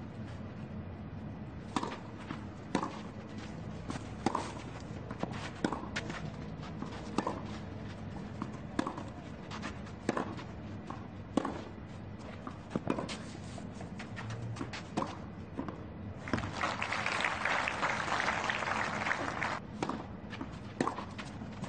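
Tennis ball struck back and forth in a rally on a clay court, a sharp racket hit about every one to one and a half seconds. About three quarters of the way in, a crowd applauds for about three seconds, then a few more hits follow.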